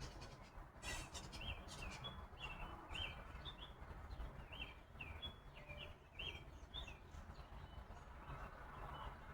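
A small bird chirping a quick run of short, high notes, about a dozen of them, from about a second in until about seven seconds in, over a faint low rumble.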